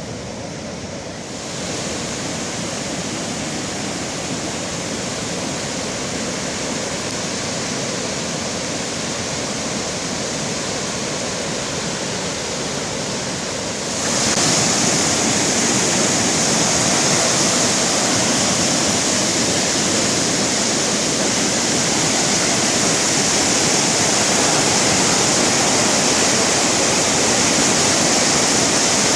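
Boulder Creek in flood: fast, high water rushing steadily. The rush gets suddenly louder about a second and a half in and again about halfway through.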